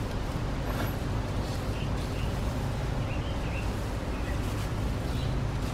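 Wind buffeting the microphone as a steady low rumble, with the loose plastic sheeting over the car rustling and a few birds chirping faintly.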